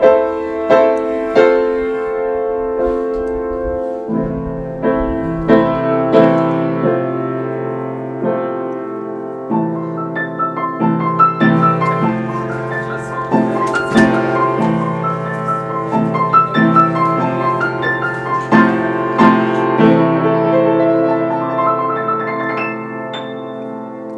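Solo piano music. At first there are evenly repeated chords, then lower bass notes come in about four seconds in, and from about ten seconds in a busier melody runs.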